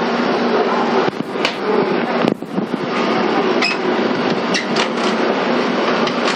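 Steady mechanical running noise inside a 485-series electric train car, with a handful of sharp clicks and knocks through the middle.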